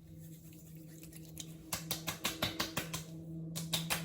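Fingertips patting skincare essence into the face: a quick run of light taps, about four or five a second, starting a little way in, over a faint steady low hum.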